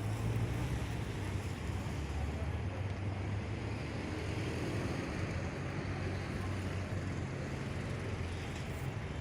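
Steady low rumble of street background noise, like traffic or an idling engine.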